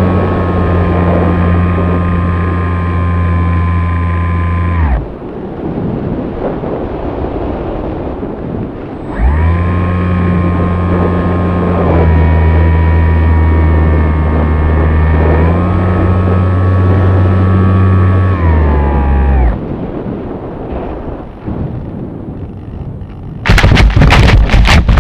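Brushless electric motor and pusher propeller of a Hobby King Sky Eye heard from its onboard camera. It runs steadily, cuts out about five seconds in and leaves a rush of air, then comes back on with two small shifts in pitch before cutting again. Near the end comes a burst of loud, rough thumps as the plane touches down in grass.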